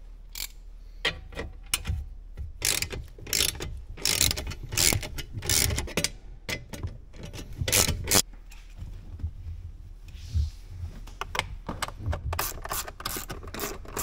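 Plastic interior trim around the steering column being pulled loose by hand: irregular clicks, snaps and rattles of plastic panels and push clips, quieter for a couple of seconds past the middle.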